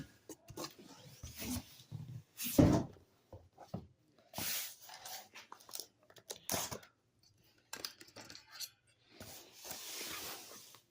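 A heavy cardboard shipping box being handled and opened, with scattered knocks and rustles, a louder thump about two and a half seconds in, and a stretch of tearing near the end.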